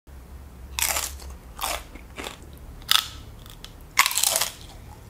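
Tortilla chips topped with nacho cheese being bitten and chewed: a run of about six separate sharp crunches, the loudest about four seconds in.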